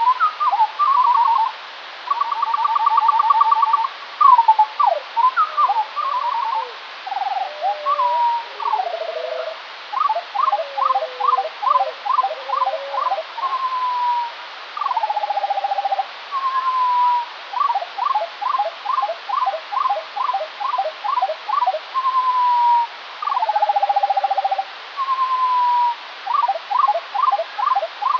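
Skylark song played back at quarter speed, so it sounds two octaves lower and four times slower: an unbroken run of sliding whistles, trills and fast runs of repeated notes at about three a second, over a steady hiss.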